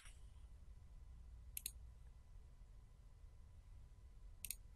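Near silence broken by two short computer mouse clicks, each a quick press-and-release double tick, one about a second and a half in and one near the end.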